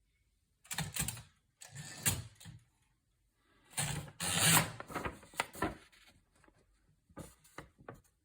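Rubbing and scraping handling noises in four bursts, the longest and loudest in the middle.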